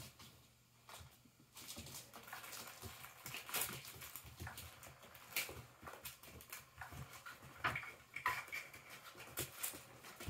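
Kittens scrabbling and patting at the fabric cover of a motorized cat toy and the carpet, a run of irregular soft scratches and taps, with a short high squeak about eight seconds in.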